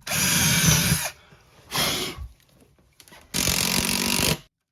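Power drill running in three bursts: about a second, a short half-second run, then about another second near the end.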